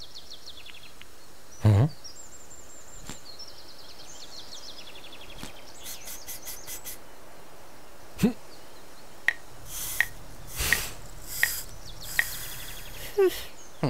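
Cartoon soundtrack: a rabbit character's short straining cries as he tries to make a stuck sledge slide, with runs of high falling chirps, a quick run of clicks around the middle, and several short swishes near the end.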